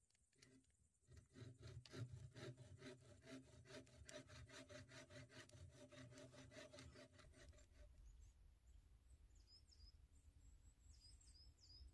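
Faint rhythmic rubbing or scraping, about five strokes a second, over a steady hum; it stops about eight seconds in, leaving a few faint high chirps.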